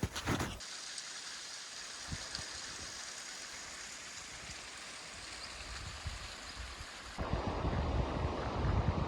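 A couple of footsteps on rock, then a steady hiss of rushing water. About seven seconds in, it cuts to louder wind buffeting the microphone.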